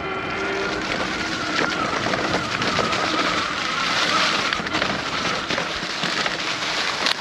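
Electric mountain bike riding over a trail covered in dry leaves: the tyres rustle through the leaves in a steady hiss, with a faint steady whine from the hub motor and a few small knocks over bumps.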